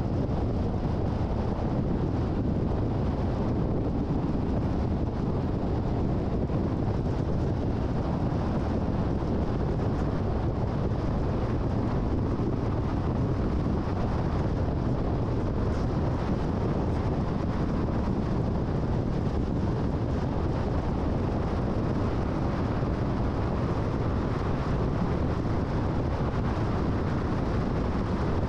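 Steady road and wind noise of a car driving at highway speed, an even low rumble that does not change.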